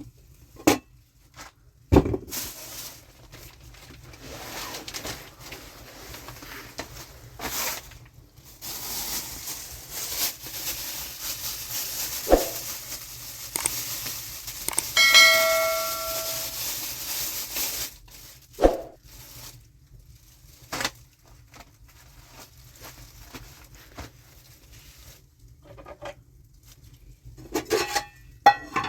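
Kitchen work with metal pots and utensils: scattered knocks and clinks, and a hissing stretch in the middle. About fifteen seconds in, a metal pot rings briefly with a clear bell-like tone.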